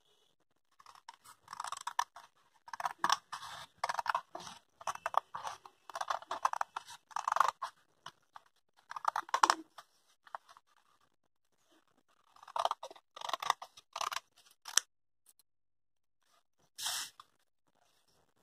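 Scissors snipping through folded blouse-pattern paper in quick runs of cuts, with a pause about ten seconds in before a second run. Near the end comes one short rustle as the paper pieces are moved.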